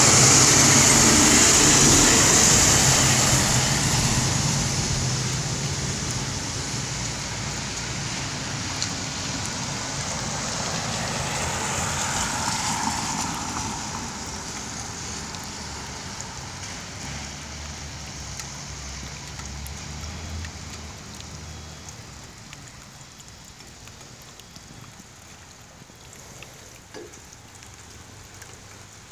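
IC CE school bus passing close by, its engine running and its tyres hissing on wet pavement, then fading steadily as it drives away down the street, with a brief swell about twelve seconds in.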